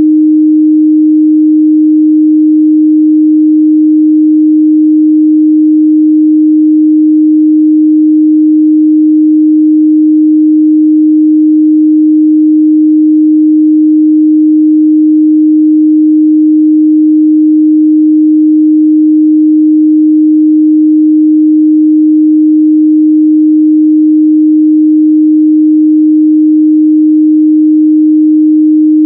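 A steady, loud 308 Hz sine-wave test tone, one unchanging pure pitch held without a break.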